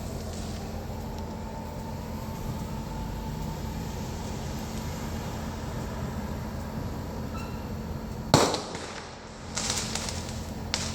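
Aerial firework shells bursting: one sharp boom about eight seconds in, crackling a second or so later, and another sharp bang near the end, over a steady low background hum.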